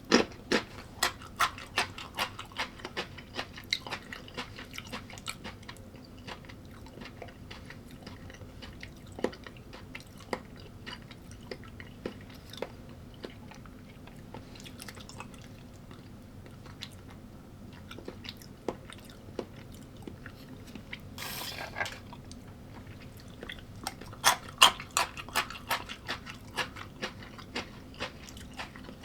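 A person chewing crunchy food close to the microphone, in crisp crunching bites. The bites come rapidly in the first few seconds, thin out through the middle and pick up again in a loud cluster about 24 seconds in. There is a short rustling hiss about 21 seconds in.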